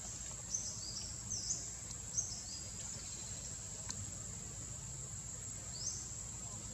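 Steady high-pitched insect drone, with a quick run of short high chirps in the first couple of seconds and one more near the end.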